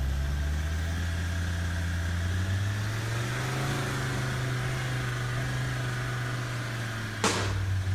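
Radio-controlled 1/10-scale Land Rover Defender 110 crawler climbing a gravel slope: a steady low motor drone that rises slightly in pitch midway, then eases. A short sharp crunch about seven seconds in.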